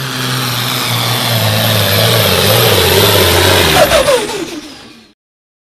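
Farm pulling tractor's engine running hard under load as it drags a weight-transfer sled, growing louder. Near the end its pitch falls as it throttles down, and the sound fades out about five seconds in.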